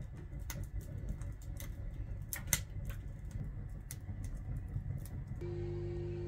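Wood burning in a wood stove, crackling and popping in irregular sharp snaps over a low rumble. A little over five seconds in, this gives way abruptly to a steady hum.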